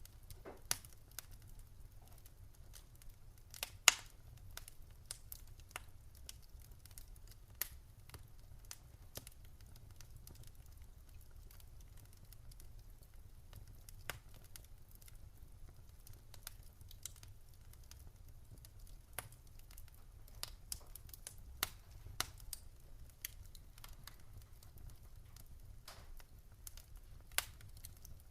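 Campfire crackling: irregular sharp pops and snaps, with one louder pop about four seconds in, over a low steady rumble.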